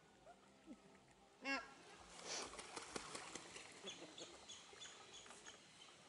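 A goose gives one short honk about one and a half seconds in, followed by splashing from waterfowl bathing in a pond. A small bird's short high chirps come faintly near the middle.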